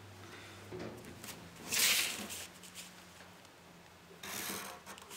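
Marker pen drawing on pattern paper along a plastic ruler, with the paper and ruler shifting. Two short scratchy strokes are heard, about two seconds in and again near the end.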